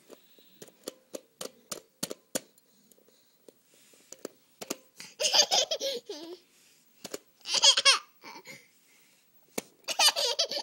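A toddler's high-pitched laughter in three loud bursts, about five, seven and a half and ten seconds in. Before them comes a run of small clicks and taps.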